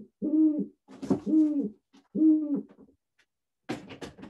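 A great horned owl hooting: three deep hoots of about half a second each, with a short clatter of clicks near the end.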